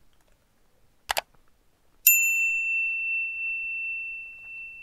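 A short click about a second in, then a single bright bell-like ding that rings on as one steady high tone and slowly fades.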